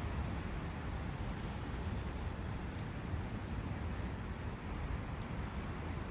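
Steady forest ambience beside a brook: a constant rush of running water, with faint light ticks.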